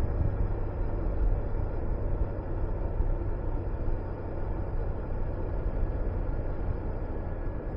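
Honda VTR250 V-twin engine running steadily at cruising speed, mixed with the rush of wind over the microphone.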